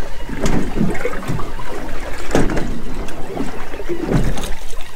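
Choppy sea slapping against the hull of a small fishing boat, with wind buffeting the microphone in uneven gusts.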